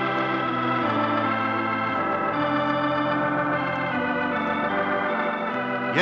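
Organ playing the radio show's theme: slow, held chords that change about every second and a half, played from a 1949 transcription disc.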